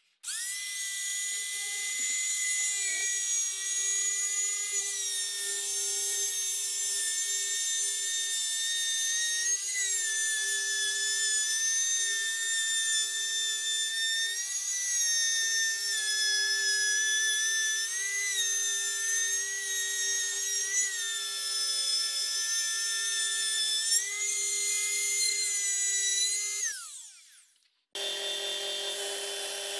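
Palm router running at high speed with a high whine, its pitch dipping repeatedly as the bit bites into the end grain of an English elm board while a groove is routed. Near the end it is switched off and its pitch falls as it winds down, and after a short gap a belt-and-disc sander motor runs with a steady lower hum.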